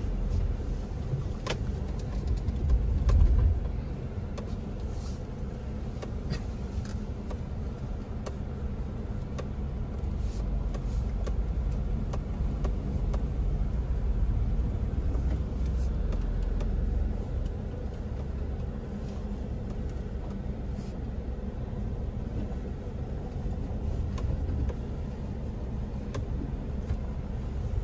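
Car on the move: a steady low rumble of engine and road noise, swelling now and then, with a few light clicks and knocks.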